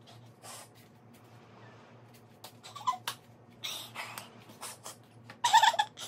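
A cat meowing briefly a couple of times, amid short rustling and handling noises, over a steady low hum.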